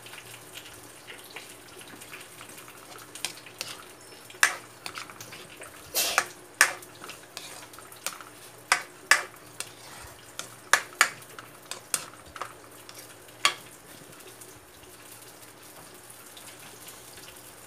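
A plastic ladle stirring thick vegetable sauce in a metal wok, knocking and scraping against the pan about a dozen times between roughly three and thirteen seconds in. Under the knocks the simmering sauce gives a steady low sizzle.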